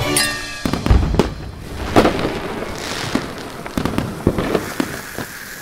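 Fireworks sound effect: a short falling whistle, then a string of sharp bangs and crackles that trail off, with music underneath.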